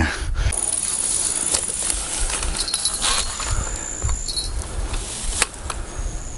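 Rustling and handling noise with low rumble as a landing net is carried through bank grass. There is a sharp click about five and a half seconds in, and brief high steady whistles in the second half.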